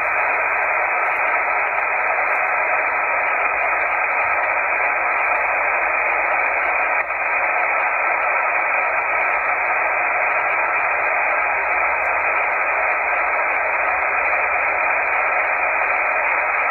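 Steady hiss of 20-metre band noise from a Yaesu HF transceiver's speaker, receiving upper sideband with no station transmitting. The hiss stops sharply at the top of the receiver's narrow voice filter and reflects a high S7–S8 noise floor.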